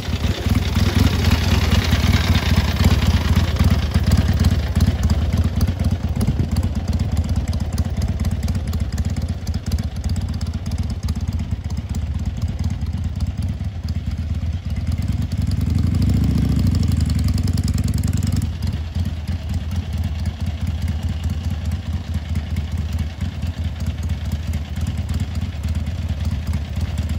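1959 Harley-Davidson XLH Sportster's 883 cc overhead-valve V-twin running, loudest as the bike rides past close by, then ticking over at low speed and idle with a pulsing beat. It swells louder for a couple of seconds about sixteen seconds in, then settles back to a steady idle.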